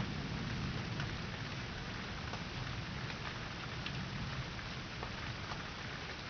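Steady rain falling, with scattered drops ticking, and a low rumble that fades over the first couple of seconds.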